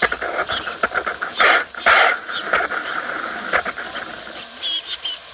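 Electric motor and drivetrain of a Traxxas Slash RC truck whining as it drives, in short bursts of throttle, with several sudden louder noises about one and a half and two seconds in.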